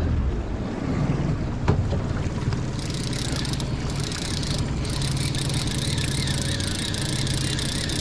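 Outboard motor running steadily at trolling speed, with wind on the microphone. From about three seconds in, a fast high ticking from a fishing reel joins it as a fish takes the leadcore rod.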